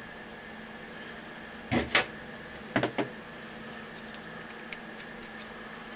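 Small metal printer parts being handled and set down on a desk: two pairs of sharp clicks and knocks about two and three seconds in, then a few faint ticks, over a steady background hum.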